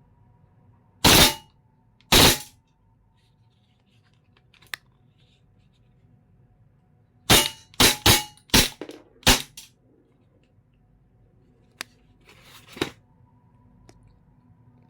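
Airsoft Glock 18C blowback pistol firing: two sharp bursts about a second apart, then after a pause a rapid string of about six more in two seconds. A few light clicks and a short hiss follow.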